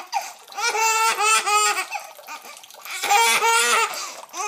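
Baby laughing in two bouts of quick, rhythmic belly laughs, high-pitched and pulsing; the second bout starts about three seconds in.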